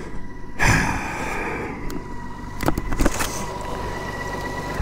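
Horn of a motorcycle lying on its side, held down as one steady tone for about four seconds, with two sharp knocks partway through.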